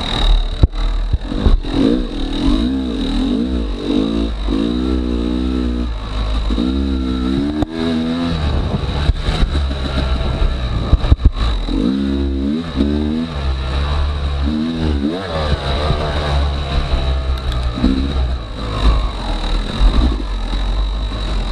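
Yamaha YZ250X two-stroke single-cylinder dirt bike engine revving up and falling back over and over as it is ridden, with scattered knocks and clatter.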